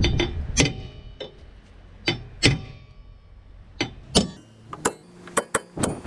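A hammer striking a stuck part of a car's drum brake to knock it loose: about ten sharp metal-on-metal blows at uneven intervals, several leaving a short ring.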